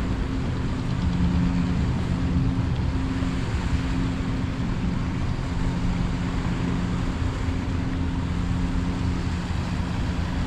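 Steady engine-like hum with held low tones over a constant low rumble and hiss, unchanging throughout.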